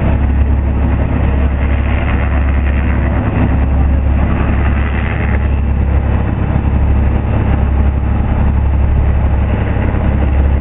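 Steady low drone of a large sportfishing boat's diesel engines running under way, over an even rushing of wind and churning wake water.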